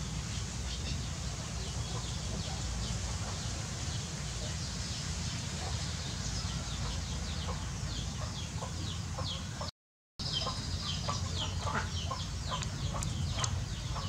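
Poultry calling: many short, high, falling peeps and chirps in quick succession over a steady low rumble. The sound cuts out for a moment about ten seconds in.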